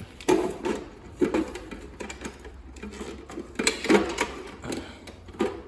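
Plastic juicer parts being handled, knocking and clattering irregularly, with a few sharper knocks.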